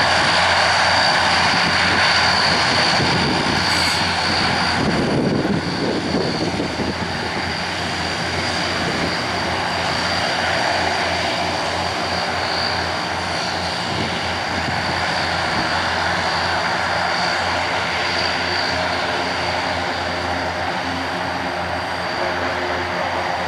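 Antonov An-32's two turboprop engines running at taxi power: a steady propeller drone with a high turbine whine over it, easing slightly after about five seconds.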